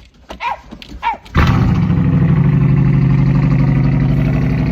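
A car engine firing on a cold start about a second and a half in, then running loud and steady. Before it catches, a dog barks twice.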